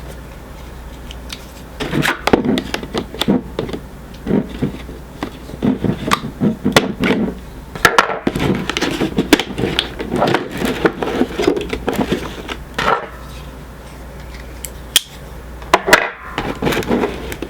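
A boxed Funko Pop in a hard plastic protector being handled: irregular clicks, taps and plastic-and-cardboard rustles in two stretches, with a short lull between them.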